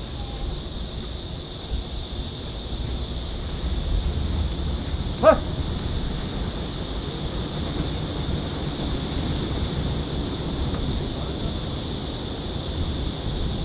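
Steady outdoor background noise, mostly a low rumble like wind on the microphone, with one short, sharp call-like sound about five seconds in.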